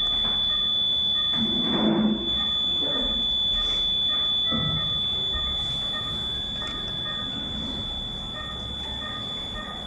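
Continuous high-pitched electronic alarm tone from NICU equipment, with short beeps repeating at irregular intervals. A brief louder noise comes about two seconds in, with a few fainter ones after it.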